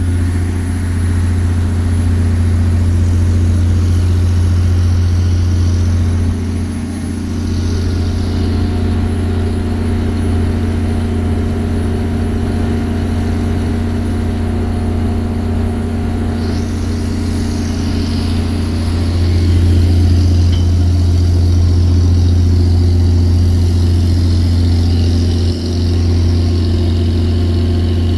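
A fishing boat's diesel engine running with a steady low drone, heard on board. A higher hiss joins about 17 seconds in.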